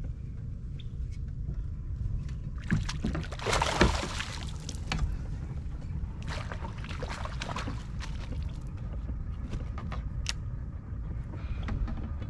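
Steady low rumble of wind and water around a fishing kayak, with scattered knocks and clicks and two brief splashy rushes, about three and six seconds in.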